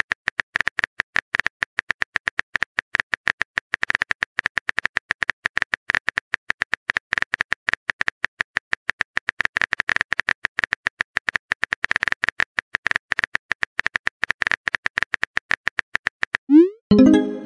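Simulated phone keyboard typing sound: rapid, even key clicks as a message is typed out letter by letter. Near the end, a short rising swoosh and blip play as the message is sent.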